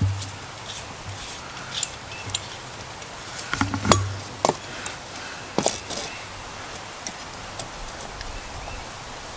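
Clicks and light knocks of a small backpacking stove being handled and screwed onto a metal gas canister. The loudest is a knock about four seconds in, as the canister is set down on the wooden planks.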